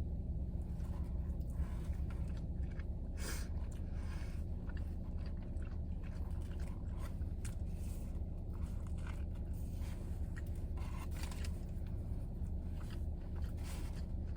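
Close-up chewing and crunching of a roast beef sub with lettuce, with short crackles and scrapes scattered through, over a steady low hum inside a car.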